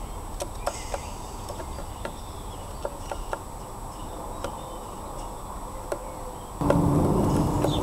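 Jackdaw's beak pecking and tapping on a wooden feeder board: a dozen or so irregular sharp clicks over a steady low background noise. Near the end a louder low rumble with a steady low tone sets in.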